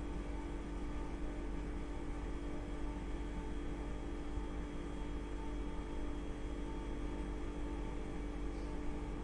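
Refrigerator running at rest: a steady compressor hum, made of a low drone and several steady tones, that does not change.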